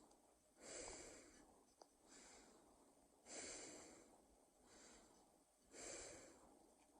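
Faint human breathing in a slow cycle: three louder breaths about two and a half seconds apart, each followed by a softer one.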